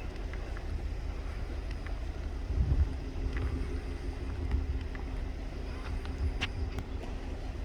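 Wind buffeting the microphone as an uneven low rumble, with a faint steady hum coming in about three seconds in.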